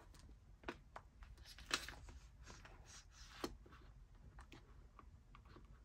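A cash envelope binder with a glitter cover being handled and opened: a few faint, separate clicks and taps, the sharpest a little under two seconds in.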